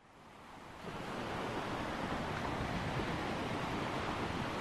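Ocean waves washing on a beach, a steady surf sound that fades in over about the first second.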